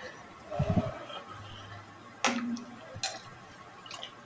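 A metal slotted spoon clinking against the side of a steel pot while milk is stirred: two sharp clinks a little after the middle, and fainter taps near the end.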